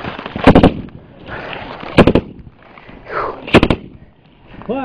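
Close-range automatic gunfire in three short bursts of several rapid shots each, about a second and a half apart.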